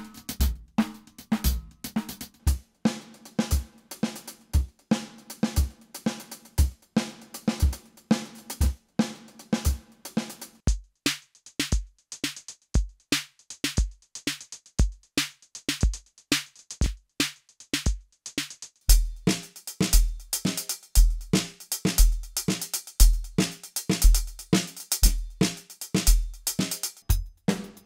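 Electronic drum sounds from a KAT KT-M1 drum module, triggered by sticks on a trapKAT pad controller, playing a steady kick, snare and cymbal groove of about two kicks a second. Partway through, the kit changes to sounds modelled on a Roland TR-808 drum machine.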